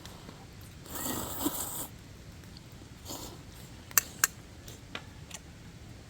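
Noodles being slurped in a long noisy draw about a second in and a shorter one around three seconds, followed by two sharp clicks of tableware.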